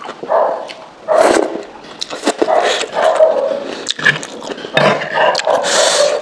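Close-miked eating sounds: wet mouth smacking and slurping of a soupy dumpling dish in irregular bursts, with a ceramic spoon clinking in the bowl about four seconds in.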